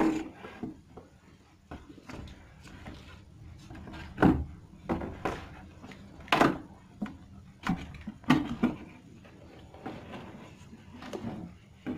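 Packaging being handled during an unboxing: a string of short knocks, taps and scrapes, the loudest clustered between about four and nine seconds in.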